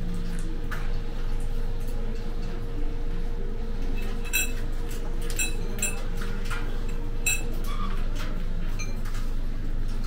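Cafe room tone: a steady low hum with a faint held tone, and a few sharp clinks of tableware between about four and seven and a half seconds in.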